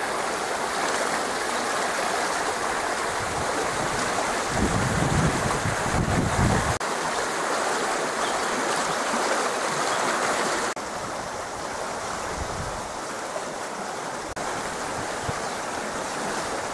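Swollen creek in flood after heavy rain, its muddy water rushing steadily past the bank and under a small footbridge. Low rumbles of wind on the microphone about five to seven seconds in, and the rush turns a little quieter about eleven seconds in.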